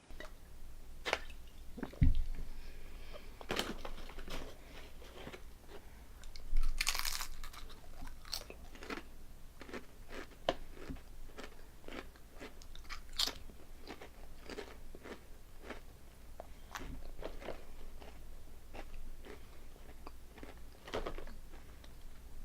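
Honey butter potato chips being bitten and chewed close to the microphone: a long run of sharp crunches, with a low thump about two seconds in and a louder burst of crunching around seven seconds.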